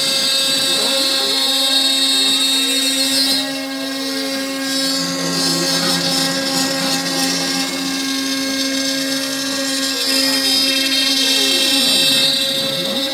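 CNC router cutting a wooden board: the spindle runs with a steady whine while the axis motors' pitch sweeps down and up as the gantry slows and speeds up. A high hiss runs over it and drops a little about three and a half seconds in.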